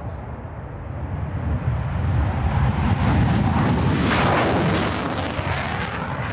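Panavia Tornado jet taking off on afterburner, its twin RB199 engines' roar building to a peak about four seconds in as it passes, then easing with a falling pitch as it climbs away.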